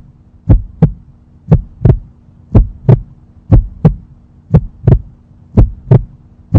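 Heartbeat sound effect: pairs of deep thumps about once a second over a low steady hum, a suspense cue.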